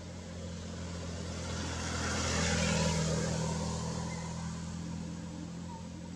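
A motor vehicle driving past. Its engine hum and tyre noise swell to a peak about three seconds in, then fade away.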